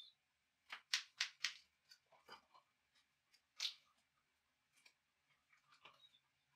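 Sleeved trading cards being shuffled and handled: short crisp snaps, a quick run of four about a second in and another near the middle, with fainter clicks between.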